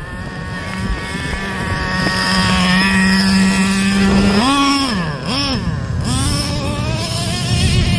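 Traxxas Slayer 3.3 nitro short course truck's small two-stroke glow engine running at high revs, its pitch steady at first, then rising and falling sharply twice about halfway through as the truck passes close.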